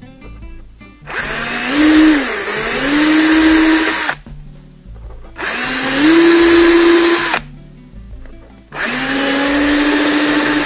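Cordless drill running in three separate bursts, boring pilot holes through soft plywood. Its motor whine climbs as each burst starts, dips once under load in the first, and the bit is kept spinning while it is pulled out to clear the hole.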